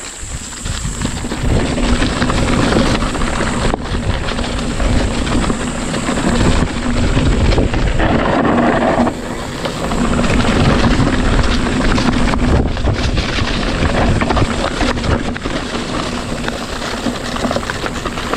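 Wind rushing over the microphone and tyres rolling over a dirt trail as a mountain bike is ridden, a loud, steady noise with no clear strokes.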